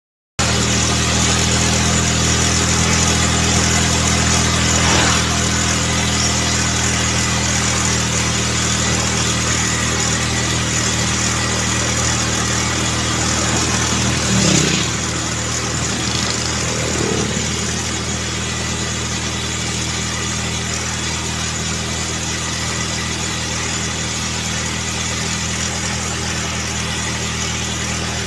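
Steady vehicle engine drone with road and wind noise while riding along a highway. Other vehicles sweep past a few times, the loudest about halfway through.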